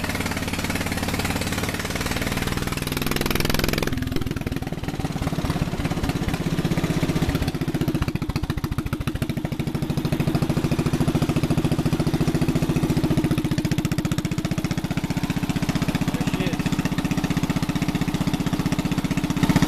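The 1952 Wisconsin AHHD air-cooled single-cylinder engine runs at a slow, even beat, driving a DeVilbiss four-cylinder two-stage compressor pump. A noisy hiss over it stops about four seconds in, leaving the engine and pump beat.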